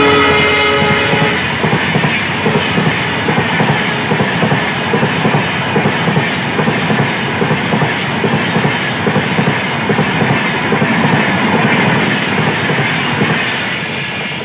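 Indian Railways express passenger train passing at speed. The diesel locomotive's horn ends with a falling pitch in the first second as it goes by. Then the coaches rumble past with their wheels clacking rhythmically over the rail joints, easing off near the end as the train clears.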